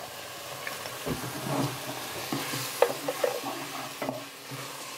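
Beef steak frying in hot oil in a clay cazuela, a steady sizzle, with a spoon stirring and scraping through the pieces and one sharp click a little past halfway.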